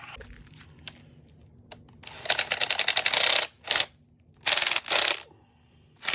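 Impact drill hammering in bursts on a seized thermostat housing screw: one longer run of rapid ticking about two seconds in, then three short bursts.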